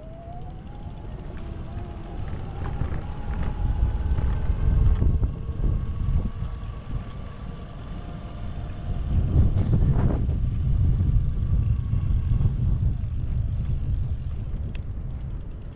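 Wind rumbling on a bike-mounted action-camera microphone while a Brompton folding bicycle is ridden along a street, swelling louder twice. A faint whine rises in pitch over the first few seconds and then holds steady.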